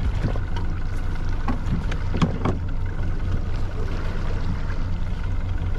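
Boat engine running with a steady low drone, heard on board, with a few light knocks over it.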